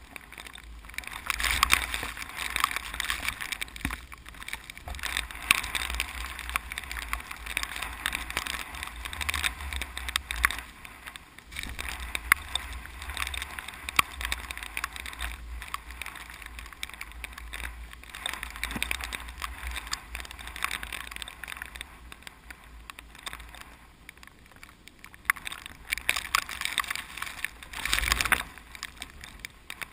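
Strong, gusty typhoon wind rumbling on the microphone and hissing through swaying rice plants, rising and falling with the gusts.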